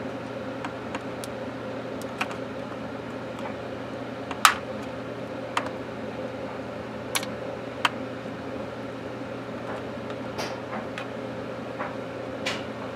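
Scattered sharp plastic clicks and taps from a Panasonic 5.8 GHz cordless phone handset being handled and worked at to pry its case apart, about nine in all, the loudest about halfway through. A steady low hum runs underneath.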